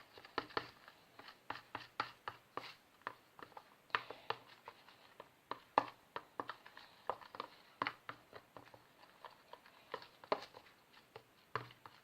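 A utensil stirring glue, foaming soap and green dye in a bowl, knocking and scraping against the bowl in quick, irregular taps.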